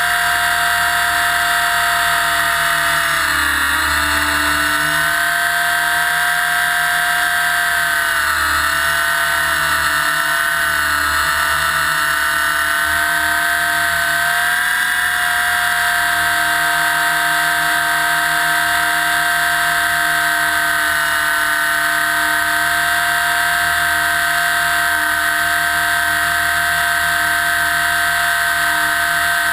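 Align T-Rex 600 electric RC helicopter heard from a camera mounted on its frame: a loud, steady high whine of the motor, gears and rotor. The pitch sags briefly a few times in the first half, then holds steady.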